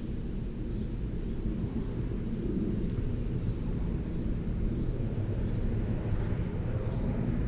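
Outdoor background: a steady low rumble of distant traffic or aircraft, with a short high chirp repeating about twice a second.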